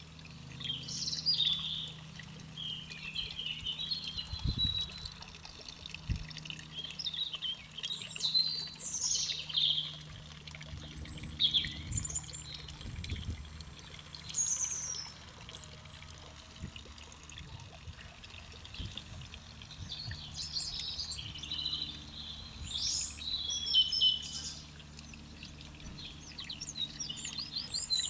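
Songbirds singing: many short, bright chirps and warbling phrases coming one after another, over a steady low background rumble.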